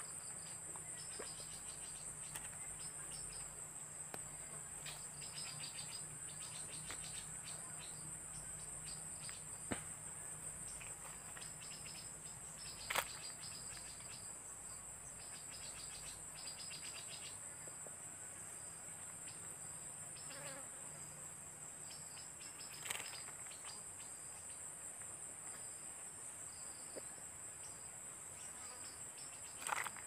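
Forest insects, crickets or cicadas, buzzing steadily at a high pitch, with rapid pulsing trills a little lower through the first half. A few short sharp clicks stand out, the loudest about a third of the way in and again near the end.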